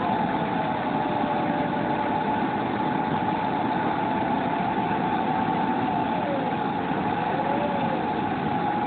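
Model jet turbine engine of a JetMach Sport 60 running at idle, heard from a camera mounted on the jet: a steady high whine over a rushing roar, with a second weaker tone that slowly slides down and wavers.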